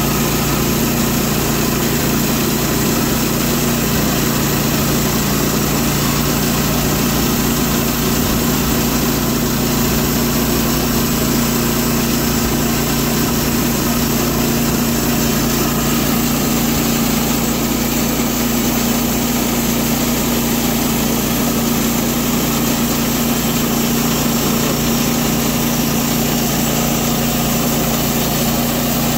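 Woodland Mills HM122 band sawmill running steadily under load, its engine driving the band blade through a pecan cant.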